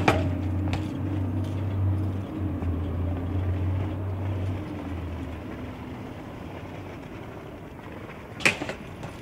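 BMX bike rolling on concrete paving with a steady low rumble that fades after about five seconds, then a single sharp knock near the end.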